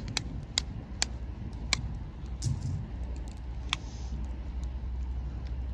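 Cooked lobster shell being cracked and pulled apart by hand: a few sharp, irregular clicks and cracks over a steady low rumble.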